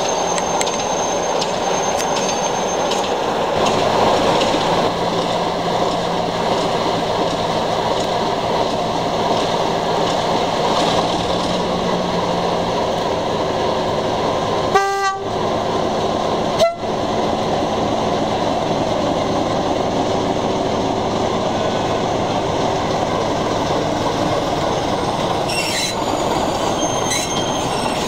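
Class 26 diesel locomotive's engine running steadily as the train moves, with a short horn toot about halfway through.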